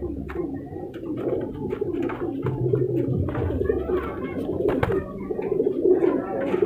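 Many Sherazi pigeons cooing together in a loft, with overlapping low, rolling coos and a few sharp clicks, the loudest about five seconds in.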